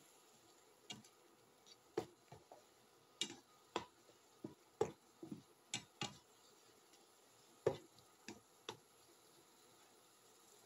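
Shrimp and vegetables simmering in sauce in a frying pan on an induction cooktop, with about a dozen sharp, irregular pops and crackles over a faint steady background; the pops stop near the end.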